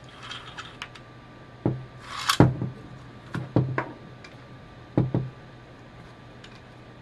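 White plastic reduction gears being pulled out of a plastic actuator gearbox housing and set down on a wooden desk: a string of sharp knocks and clicks. A short scraping rustle runs into the loudest knock about two and a half seconds in.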